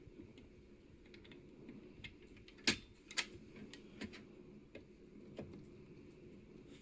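Scattered light clicks and taps of a screw and screwdriver against a case fan frame while a fan screw is lined up and started into its hole, the sharpest clicks a little under three seconds in and again half a second later.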